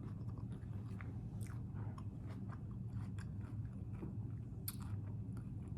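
A person chewing a crunchy hard-shell taco close to the microphone, with scattered crisp crunches, the sharpest near the end, over a steady low hum.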